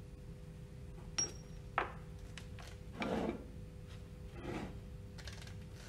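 Small handling noises as metal pump seal parts and a screwdriver are moved about on a wooden pallet: a light metallic click with a brief ring about a second in, a knock soon after, then two short rubbing scrapes. A faint steady hum runs underneath.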